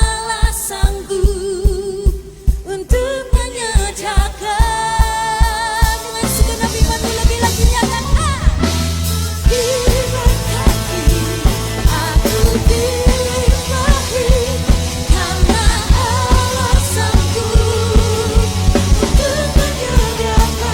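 Church worship band playing a praise song with singers, drum kit keeping a steady beat; the full band with bass comes in about six seconds in.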